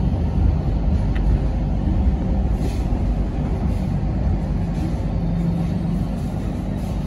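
Hong Kong Light Rail Comeng car heard from inside the cabin: a steady low rumble of wheels and running gear as the train pulls into a stop. A brief low hum sounds about five seconds in.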